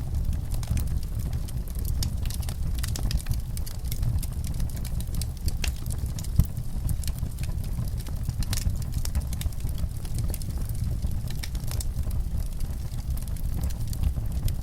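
Wood fire in a fireplace crackling: frequent small snaps and pops over a low steady rumble, with one sharper pop about six seconds in.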